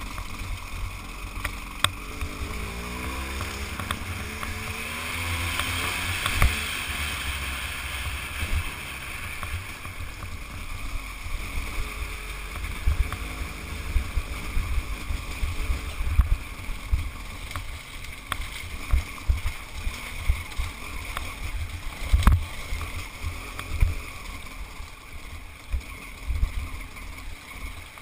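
Dirt bike engine running under way on a rough gravel trail, heard from on the bike, its note rising as it revs up a few seconds in. Low rumble and repeated knocks from the bumpy ground run under it.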